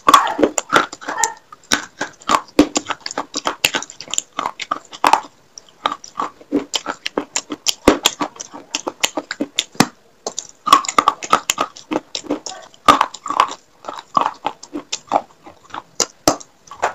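Biting and chewing of broken pieces of a terracotta gullak (fired-clay money pot): a dense run of sharp, crisp crunches, thinning out for a few seconds midway before picking up again.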